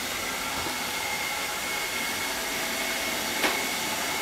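ILIFE V5S robot vacuum running in max suction mode: a steady whirr with a thin high whine over it. A single sharp click about three and a half seconds in.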